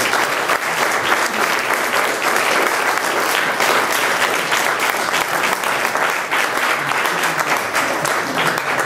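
Audience applauding: many hands clapping at once, steady and sustained.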